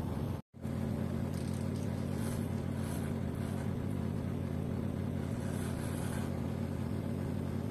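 Corded electric hair clipper running with a steady buzz as it cuts hair at the side of the head. The sound drops out completely for a moment about half a second in.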